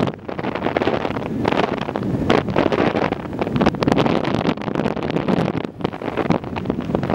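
Wind buffeting the microphone in uneven gusts, over the steady rumble of a whale-watching boat at sea.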